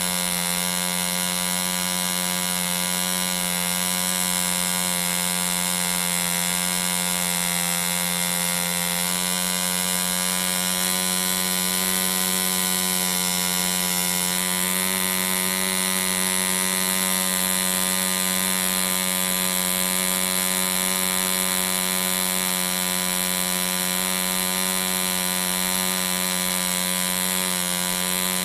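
A 1945 French Stab 1.25 cc two-stroke model diesel engine running steadily at about 5600 rpm. Its tone shifts slightly about halfway through as the compression lever on top of the cylinder is turned.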